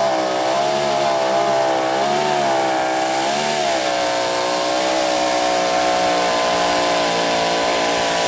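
Modified pulling tractor's open-exhaust racing engine running flat out under load, loud and steady, its pitch dipping and swelling briefly a couple of times as it pulls.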